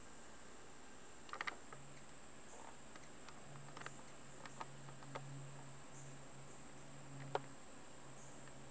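Faint outdoor ambience: a steady high-pitched insect drone, with a few light clicks and taps scattered through, the loudest near the end. A low hum comes in about two seconds in.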